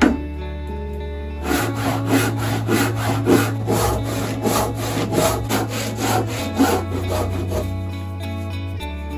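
A single mallet blow on a chisel at the very start, then a handsaw cutting through an oak block held in a vise, in rhythmic back-and-forth strokes of about two to three a second that stop about a second before the end. Acoustic guitar music plays underneath.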